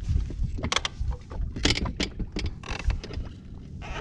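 Boat sitting on choppy water: irregular small knocks and short splashy sounds against the hull over a steady low rumble.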